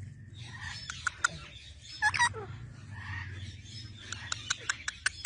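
Pet parrot chattering: a short bending squawk about two seconds in, then a quick run of sharp clicks near the end.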